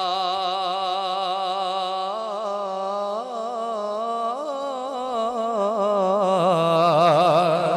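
A man singing a long, drawn-out phrase of a Punjabi devotional naat into a microphone: a held note that breaks into wavering melismatic ornaments about two seconds in, with a wide quivering vibrato near the end.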